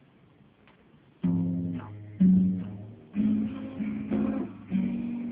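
Acoustic guitar opening a song, starting about a second in with chords struck roughly once a second and left to ring.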